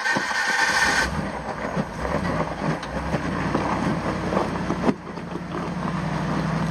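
Rock-crawling Jeep's engine running just after being restarted from a stall, harsh and uneven in the first second, then working unevenly as the rig sits on the rocks. The level dips briefly about five seconds in, then the engine settles to a steadier run.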